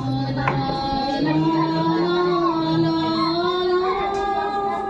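A recorded song playing over a loudspeaker as dance music: a voice sings long held notes over a low, steady instrumental line.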